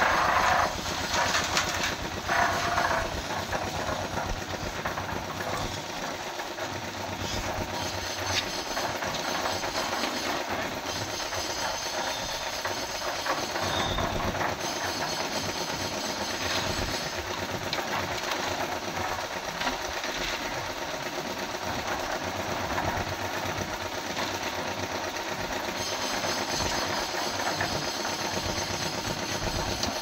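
Portable drum concrete mixer running steadily while it mixes concrete, its engine and turning drum making a continuous mechanical noise, a little louder in the first few seconds.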